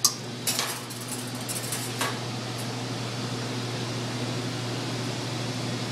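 Wire whisk clinking against a stainless steel mixing bowl a few times in the first two seconds. After that, a steady hum of kitchen ventilation.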